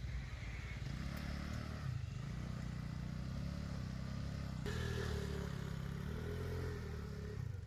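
Motor vehicle engines running in slow traffic, a steady low hum. The sound changes abruptly about two-thirds of the way through, and a steadier engine tone comes in.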